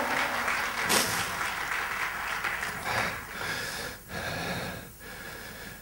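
A man breathing heavily into a close handheld microphone, several breaths of about a second each.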